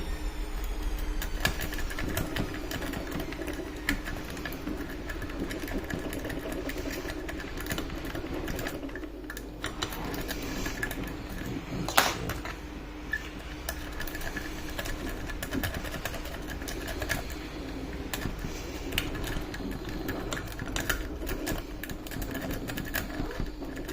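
Lock picks working the pins of a 6-pin UAP lock cylinder: small irregular metallic clicks and scrapes, one sharper click about halfway through. A washing machine runs under it as a steady low hum.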